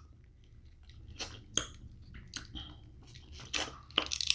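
Close-up eating sounds of snow crab legs: chewing and wet mouth smacks with scattered small clicks. Near the end a louder burst of quick crackling clicks as crab shell is picked apart.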